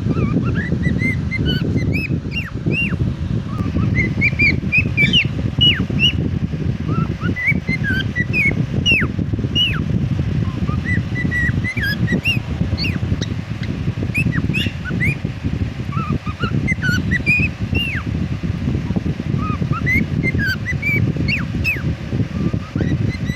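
Cockatiel chirping and whistling: many short calls that sweep up and down in pitch, a few a second. A steady low noise runs underneath.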